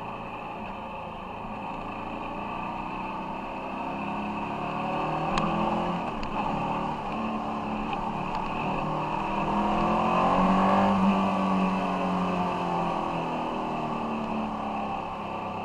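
Ducati Monster 696's air-cooled L-twin engine running on the road, its pitch rising and falling as the rider accelerates and eases off, loudest about ten to eleven seconds in. A sharp click about five seconds in.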